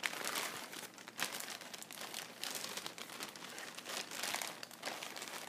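A clear plastic bag crinkling as it is handled and opened by hand, in an irregular run of crackles.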